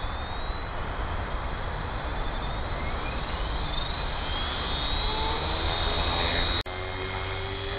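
Electric 450-size RC helicopter (HK-450TT Pro, Turnigy 2218H brushless motor) spooling up on the ground: the motor and gear whine rises in pitch along with rotor whoosh, then settles toward a steady head speed. The sound cuts out for an instant near the end.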